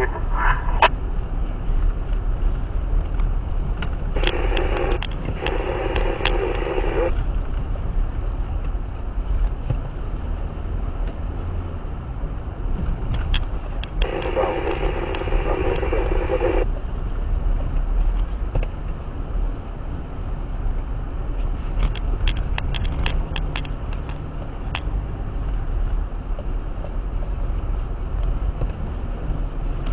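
Car running with a steady low rumble. Two stretches of crackling hiss, each about three seconds long, come about four and fourteen seconds in, and scattered sharp clicks run through it.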